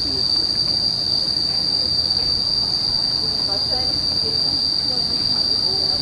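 Cicadas in the trees singing in one steady, high-pitched drone that does not let up.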